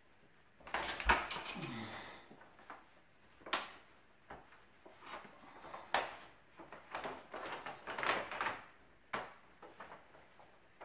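Stiff paper rustling and crackling in irregular bursts as the release backing is peeled off a self-adhesive wallpaper sheet and the paper is pressed up onto the ceiling. The loudest burst comes about a second in.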